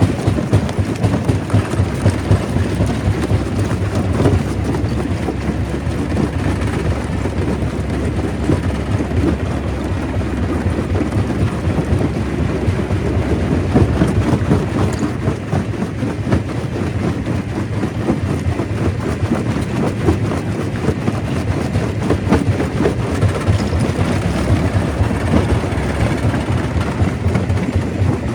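Stone crusher running under load: a steady heavy rumble with dense, continuous rattling and knocking of rock.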